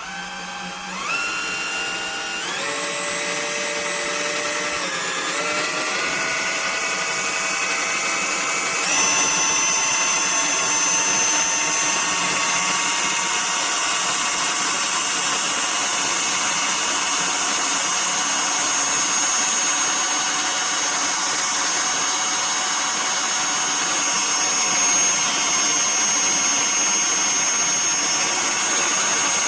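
A lathe toolpost spindle's motor starts up and is stepped up in speed several times, its whine jumping higher at each step over the first nine seconds or so. It then runs steadily at a high speed with a high whine.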